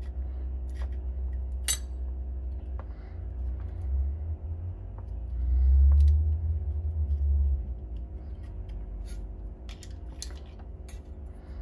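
Light, scattered metallic clicks and clinks as worn clutch friction discs and steel plates are slid off an ATV clutch hub by hand and pried with a screwdriver. A steady low hum runs underneath and swells for a couple of seconds around six seconds in.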